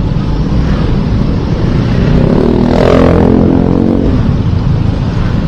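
Riding a motorcycle in traffic: a steady low engine and wind rumble. About halfway through, a louder engine note swells and then drops in pitch.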